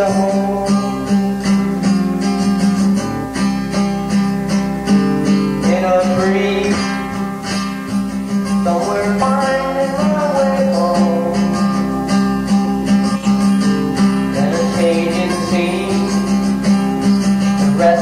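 A song played back from a cassette tape: guitar with a voice singing over it.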